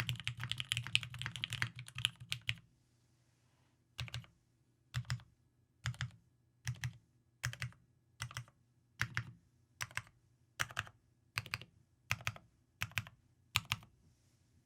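Typing on a TGR Jane V2 custom mechanical keyboard with lubed Tealios V2 linear switches, an aluminium plate and Cherry G81-3000 keycaps. Fast continuous typing stops after about two and a half seconds, and after a short pause single keys are pressed slowly and evenly, about one every 0.7 seconds, each press giving a quick double clack.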